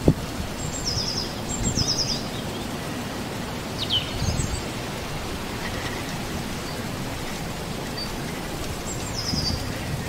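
Steady wind hiss with occasional low gusts, and small birds calling a few times. There are two quick high falling trills about a second in, a falling chirp around four seconds, and another trill near the end.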